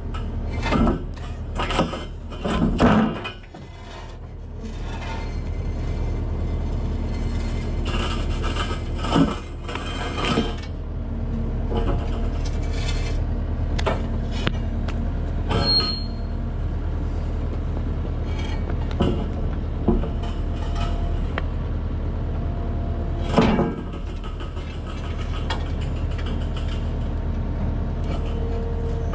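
Heavy-equipment engine running steadily while steel plates are pried up and moved, with repeated metal clanks and bangs, a cluster of loud ones in the first few seconds and another loud bang near the end, and a brief high squeal in the middle.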